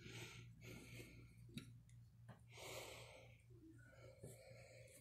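Near silence under a steady low hum, with a few faint breaths and light clicks.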